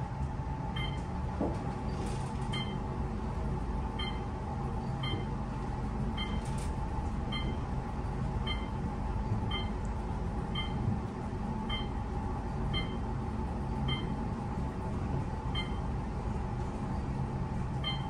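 Otis elevator car travelling up through the building: a steady low rumble and hum of the moving car, with a short electronic beep about once a second, one for each floor passed.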